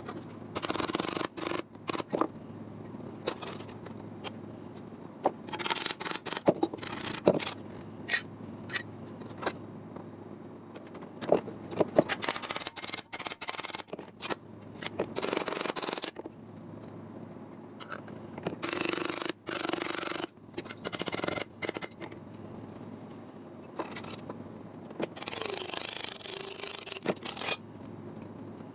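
Hand cutting and scraping during sheet-metal patch-panel work: irregular bursts of scraping, rasping noise of a second or two each, broken by sharp clicks and snips.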